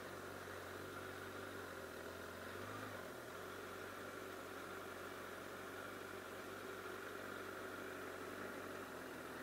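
Honda CBR1000RR Fireblade's inline-four engine running at low revs and idling as the bike rolls at walking pace to a stop. It is a steady low hum with a brief shift in pitch about three seconds in.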